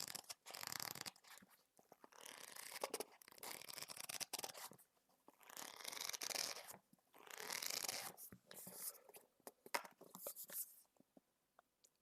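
Paper and cover sounds from a thick book being handled for ASMR: a series of rough, papery swishes about a second long each, like pages being riffled or the cover being scratched, with small clicks between them. It fades to a few faint taps near the end.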